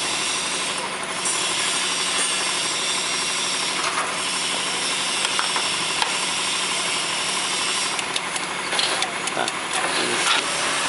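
Roll forming machine running, its drive giving a steady hum and hiss as a steel strip feeds through the forming rollers. A few clicks and rattles come near the end.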